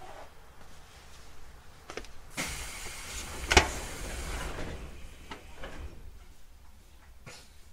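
811-series train's passenger sliding doors closing: a hiss starting about two and a half seconds in, then a single sharp thud as the doors shut, with a few lighter knocks around it.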